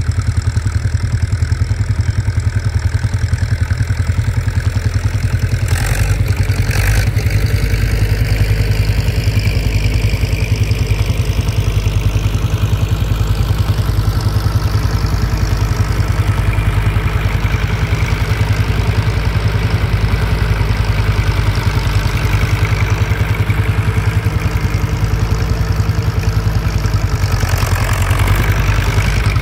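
John Deere tractor engine running steadily, with two short knocks about six and seven seconds in.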